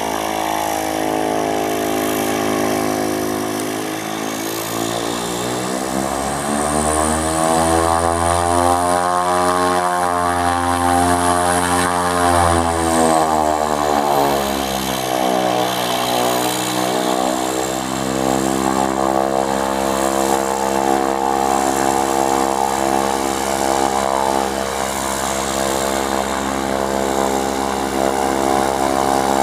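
Cessna 208B Grand Caravan's Pratt & Whitney PT6A turboprop running at taxi power: a steady propeller drone with a high turbine whine. Its tone sweeps up and then back down in the middle as the aircraft moves along the runway.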